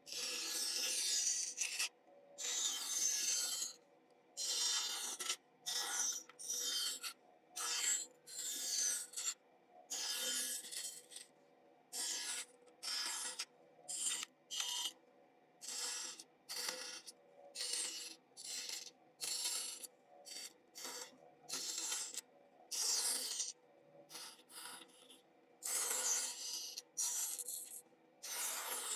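A hand tool shaving or rasping wood in repeated strokes, about one a second, some strokes longer and scratchier than others, with short silent gaps between them.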